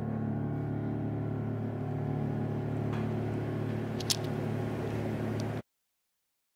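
Electric keyboard holding a low, sustained final chord, with one sharp click about four seconds in; the sound cuts off abruptly near the end.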